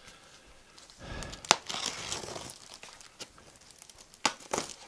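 Packing tape being cut and torn off a cardboard shipping box, with scratchy crinkling and tearing, a sharp click about one and a half seconds in and another near the end.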